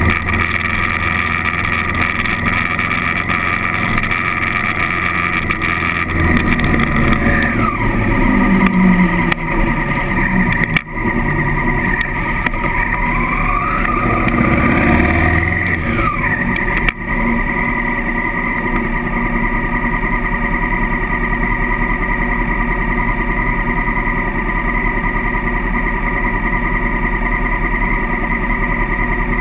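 Honda CRF1000L Africa Twin's parallel-twin engine running steadily as the bike rides along the road. In the middle the engine note falls and rises again, and the sound dips briefly twice.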